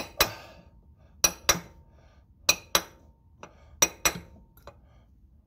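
A hammer taps a steel punch held against a new axle seal in the transaxle case of a 2008 Pontiac Montana, working around the seal's edge to seat it. There are four pairs of sharp metallic clinks, the pairs about a second and a quarter apart, with a couple of lighter taps between.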